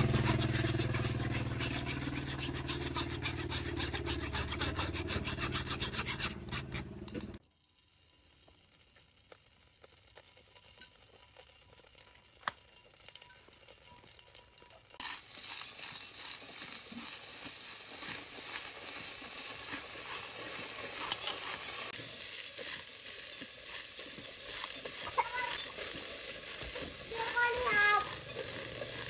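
Pond snails stir-fried in an aluminium pot over a wood fire: a steady sizzling hiss starts suddenly about halfway through, with chopsticks clicking as they stir. Before that, a loud low rumble cuts off abruptly about seven seconds in, followed by a quiet stretch.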